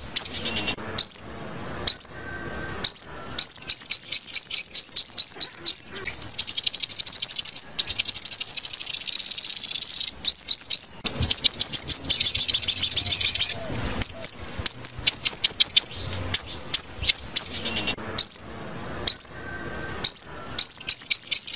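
Sunbird calling: a fast series of sharp, high chirps, several a second, broken by quicker trilled runs.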